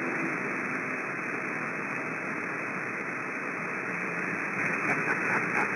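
Steady static hiss from a CB radio receiver on an open channel between transmissions. A voice trails off in the first half second and a few faint clicks come near the end.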